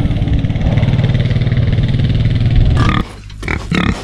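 Quad bike engine running steadily. It cuts off abruptly about three seconds in, and pigs grunting and snuffling close up follow.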